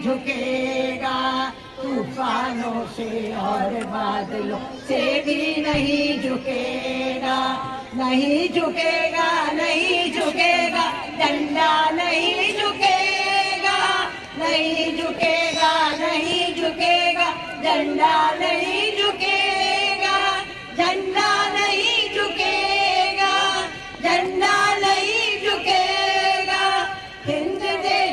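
A group of women singing a song together in chorus, in phrases several seconds long with short pauses between them.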